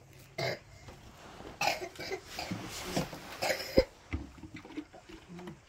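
A person coughing a few times in short rough bursts, with a sharp click a little under four seconds in.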